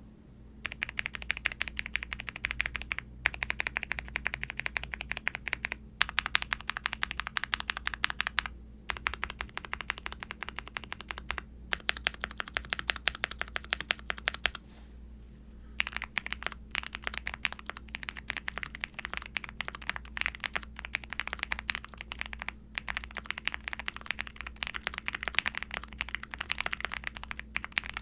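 Continuous typing on a Qwertykeys QK75N mechanical keyboard with Akko Bittersweet tactile switches, an FR4 plate, full foams and ABS keycaps: rapid key presses in runs with brief pauses and a longer pause about 15 seconds in. The sound is deep and subdued, typical of this foamed, gasket-mounted build.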